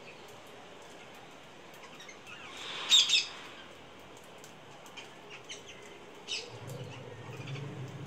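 Rose-ringed parakeets calling: one loud call about three seconds in, then several shorter calls. A low hum comes in near the end.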